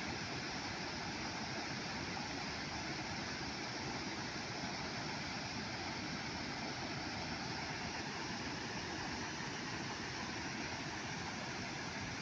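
Steady rush of floodwater overflowing a river check dam and pouring over the weir.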